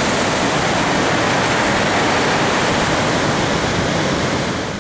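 Steady roar of breaking ocean surf, fading out near the end.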